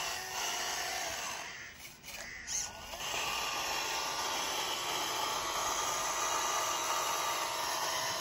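The small motor of a handmade model Massey Ferguson 385 tractor running steadily as the tractor works through sand, dipping briefly about two seconds in.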